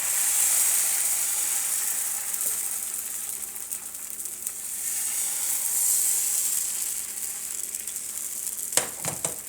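Thin crepe batter sizzling in a hot oiled frying pan: a steady high hiss that swells and eases, with a few sharp clicks near the end.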